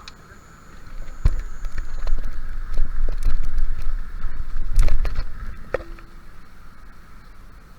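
Riding noise from a moving bicycle: a low rumble that swells for a few seconds, with a handful of sharp knocks and rattles as the bike rolls over a rough stretch.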